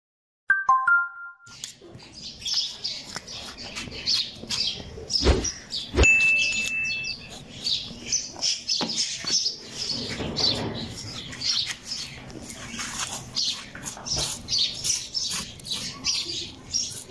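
Many small birds chirping rapidly and without pause. About half a second in, a few short steady tones step down in pitch, and two sharp knocks come about five and six seconds in.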